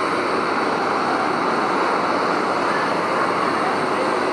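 Jet airliner's engines during a landing, a steady, unchanging noise.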